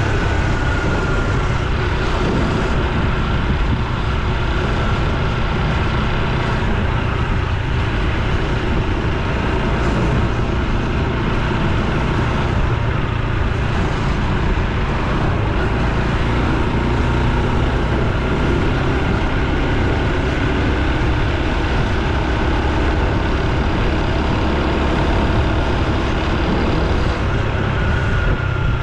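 Honda Super Cub C125's single-cylinder four-stroke engine running steadily while riding, with a dense low rumble throughout. A faint high tone slides slowly downward near the start and again near the end.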